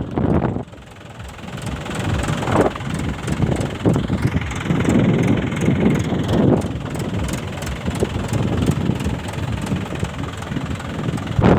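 Mahindra 475 DI tractor's diesel engine running. Its level drops sharply under a second in, then builds back up over the next few seconds.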